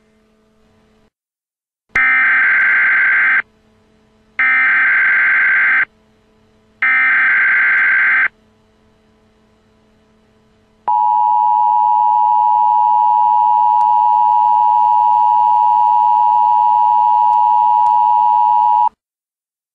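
Emergency Alert System signal: three loud bursts of the digital SAME header, a harsh data screech lasting about a second and a half each, followed a few seconds later by the two-tone EAS attention signal held steady for about eight seconds before cutting off.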